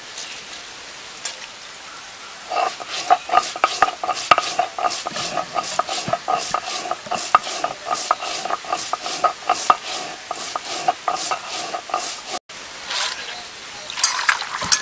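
Whole cumin seeds being ground on a stone slab (sil-pata) with a cylindrical grinding stone rolled back and forth: quick, repeated scraping and crunching strokes, several a second. These start a couple of seconds in and stop abruptly. Near the end, water is poured from a bottle into a steel bowl of jackfruit seeds.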